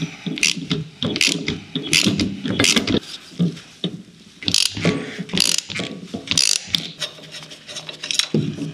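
Hand socket ratchet wrench clicking in repeated quick runs of strokes, undoing the bolts on a car's gear-shift linkage.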